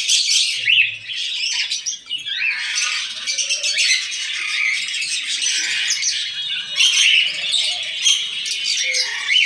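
Many caged birds chirping and squawking at once, a dense, unbroken chatter of short, high calls.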